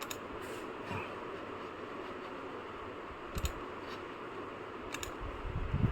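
A few sharp, light clicks over a faint steady hiss, one near the start, one at about three and a half seconds and one at about five seconds, with small handling knocks near the end.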